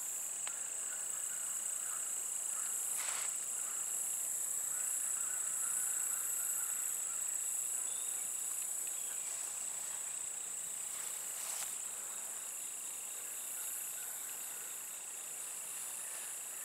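Insect chorus of crickets, a steady high-pitched trill throughout, with a fainter, lower trill coming and going.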